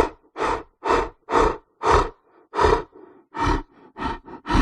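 Lion giving a run of about ten short, breathy grunts, roughly two a second, the grunting series of a lion's roar.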